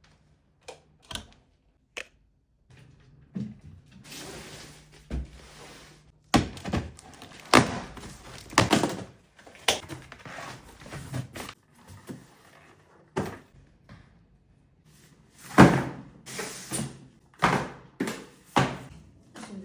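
A run of close, separate knocks, taps and thunks from things being handled and set down, with two short stretches of rustling hiss, one about four seconds in and one near the end.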